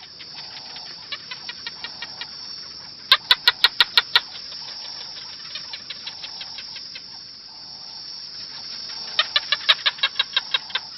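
A bird calling in quick runs of sharp repeated notes, about eight a second, loudest in two runs, the first about three seconds in and the second near the end, over a steady high hiss.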